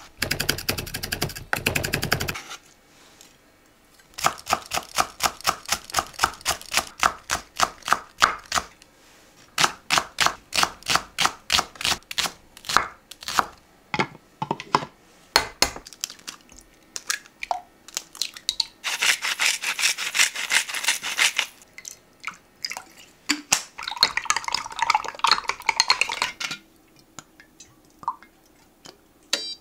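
A knife chopping on a cutting board in a long steady run of sharp knocks, about three or four a second. Later come two stretches of hiss-like noise, each a couple of seconds long.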